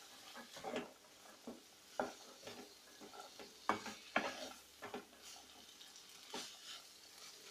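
Wooden spatula stirring boiled yellow peas and minced chicken in a non-stick wok: soft, irregular scrapes and knocks against the pan, over a faint sizzle.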